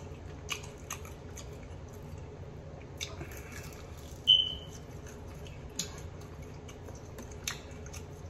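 Close-miked mouth sounds of eating chicken wings: chewing and biting into the meat, with scattered wet clicks and smacks. A short high squeak about four seconds in is the loudest sound.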